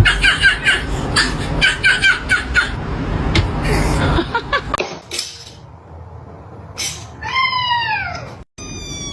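A domestic cat gives one long meow about seven seconds in, falling in pitch as it goes.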